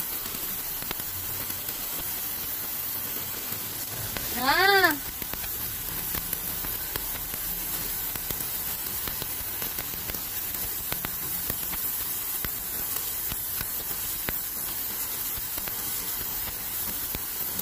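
Pressure-washer jet hissing steadily as it blasts algae off wet concrete. About four and a half seconds in, a brief loud call with a rising-then-falling pitch sounds over it.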